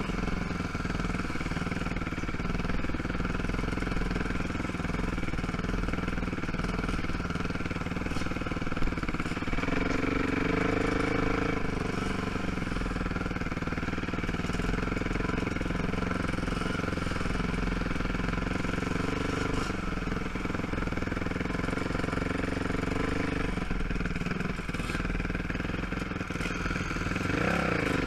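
ATV (quad) engine running at low speed, its note rising and falling with the throttle. It picks up about ten seconds in and again near the end.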